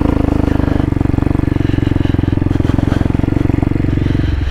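2020 CSC TT250's single-cylinder engine running at a steady, even speed while the bike is ridden along a dirt trail, with a rapid, regular pulse in its note.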